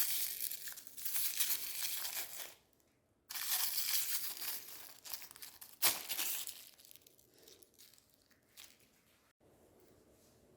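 Plastic chocolate bar wrappers being torn open and crumpled in two spells of crackling, with a sharp click about six seconds in, then only a few faint rustles.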